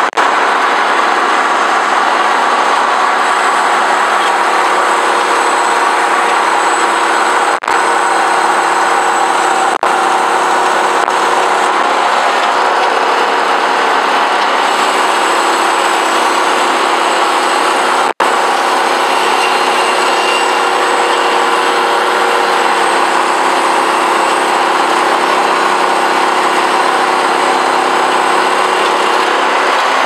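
Norwood LumberPro HD36 portable bandsaw mill running steadily, its gas engine driving the band blade through an elm log, with two momentary dropouts about a third and two-thirds of the way through.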